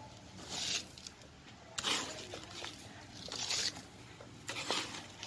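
A sandy soil mix of river sand and compost poured into a clay pot in four short pours, each a brief hiss.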